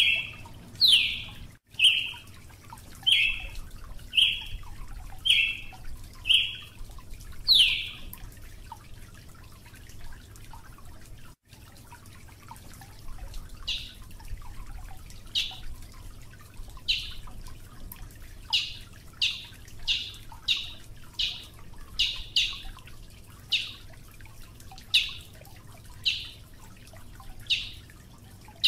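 A songbird giving repeated short, sharp call notes, some sweeping downward. They come about once a second, stop for a few seconds midway, then return more closely spaced near the end.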